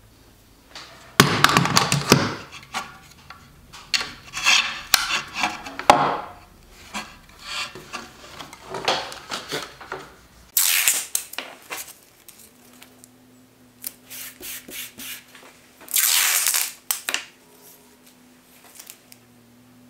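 Hands handling a large ash slab and wooden tools: a run of short, irregular scrapes, rubs and knocks of wood sliding on wood, with two louder hissing scrapes later on. A faint steady hum sits underneath in the second half.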